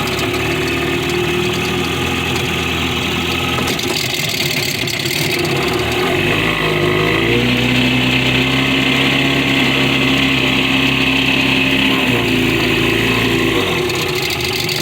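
40 hp Mercury outboard motor running in forward gear: it idles, then about six seconds in the throttle is opened and the engine speed rises to a higher steady note. It drops back to idle near the end. It revs up only a little because the boat is held on its trailer and the propeller is not pushing it along.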